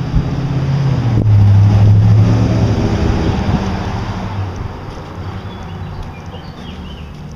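A motor vehicle's engine passing by, growing loud about a second in and then fading away over the next few seconds.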